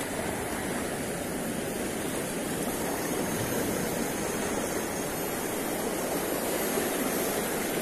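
Sea water washing and churning around shoreline rocks, a steady rushing noise.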